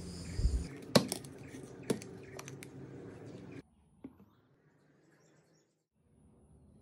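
A few sharp plastic clicks and knocks from a mixer-grinder jar and its clip-on lid being handled after grinding, over a faint background hum. It drops to near silence after about three and a half seconds.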